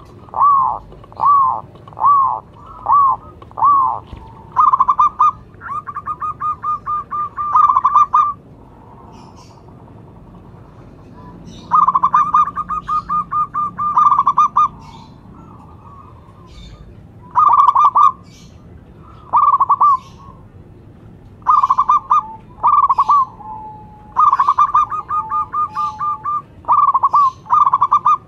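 Zebra dove (perkutut) cooing song. The first few seconds hold a run of separate falling coo notes. After that come bouts of rapid, pulsed trilling coos lasting a second or more, with pauses between them, and short coo phrases near the end.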